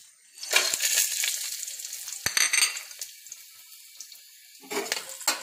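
Whole spices (cardamom pods, black peppercorns, bay leaves, cinnamon, cloves and dried red chilli) dropped into hot oil in a stainless steel pot, the oil sizzling up each time a handful goes in: about half a second in, again at the middle with a sharp click, and again near the end, dying down in between.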